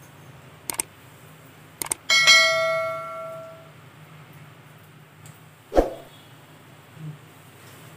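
Two quick mouse clicks, then a bright bell chime that rings out and fades over about a second and a half: the sound effect of an animated subscribe-and-bell-notification button. A single sharp knock comes later.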